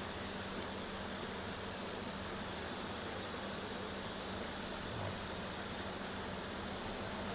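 Steady low hum with an even hiss over it, unchanging throughout, with no distinct knocks or clicks.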